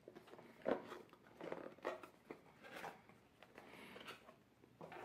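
Faint rustling and scraping of a small white cardboard box being handled and its flap lid opened, heard as several brief scuffs.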